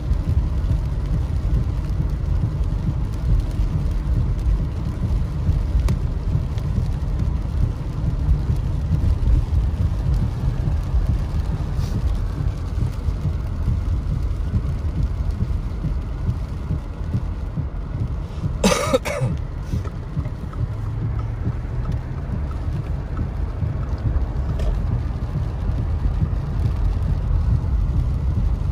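Car driving on rain-soaked roads in heavy rain, heard from inside the cabin: a steady low rumble of engine and tyres on wet pavement, with rain on the windshield. One short, sharp sound about 19 seconds in.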